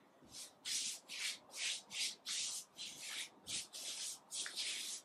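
Paintbrush bristles stroking back and forth over a wooden mirror frame, brushing on glaze: a dozen or so quick rhythmic strokes, about two to three a second.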